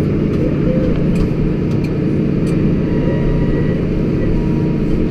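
Tractor engine running steadily under a low, even rumble.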